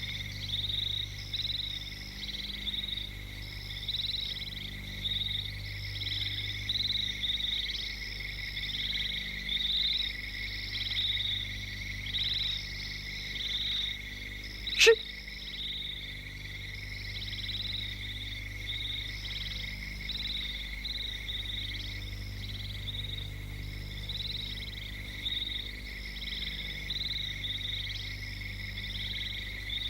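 Night chorus of frogs and insects: a steady high trill with short calls repeating over it, and a single sharp click about halfway through.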